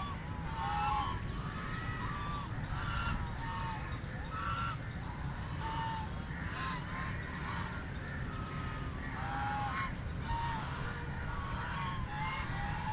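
Ducks quacking: many short calls, overlapping and at irregular intervals, over a steady low rumble.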